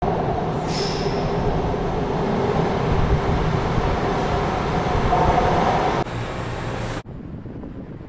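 Metro train approaching through a tunnel: a loud rumble with a steady whine. It cuts off abruptly about seven seconds in, giving way to a much quieter outdoor hiss.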